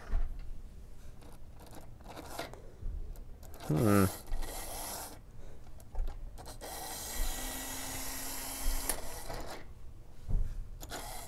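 Small electric motor of an Athearn Hustler HO-scale model locomotive whirring with a rasping grind for about two seconds past the middle, amid light clicks and rubbing as the model is handled on the track. It runs poorly: the owner says it needs new traction bands and that something is a little off with it.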